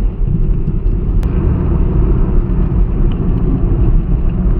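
Steady low rumble of a Honda City cruising at about 80 km/h, heard from inside the cabin, with one sharp click about a second in.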